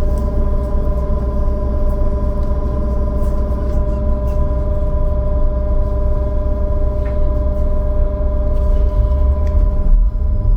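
Trolleybus heard from on board: a steady electrical whine of several held tones over a low rumble, with a few faint clicks.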